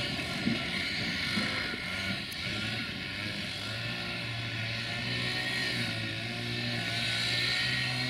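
Romanian 060-DA (LDE2100) diesel-electric locomotive with its Sulzer 12-cylinder engine running under load as it hauls a passenger train away. A steady low drone settles in about halfway through, mixed with the rumble of the coaches rolling over the points.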